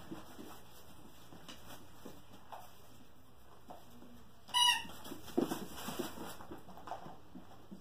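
Puppies playing and scuffling together, with one short, high squeal a little past halfway.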